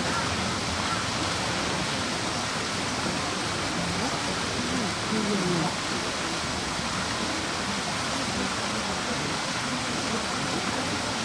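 A steady rushing noise, like flowing water, with faint voices murmuring underneath.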